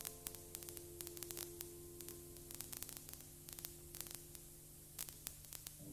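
Faint steady electrical hum on the soundtrack, with scattered crackling clicks like static.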